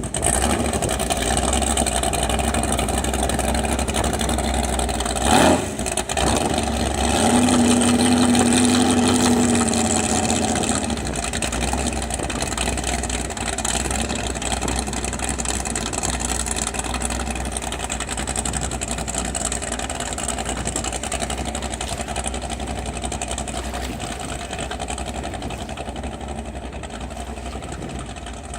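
A boat's Chevy big-block V8 running steadily underway, with a brief sharp thump about five seconds in. The engine note gradually fades toward the end.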